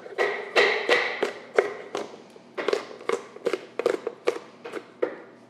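Chef's knife chopping fresh cranberries on a wooden cutting board set on a metal sheet pan: quick, uneven knocks, about three a second, each with a short ring.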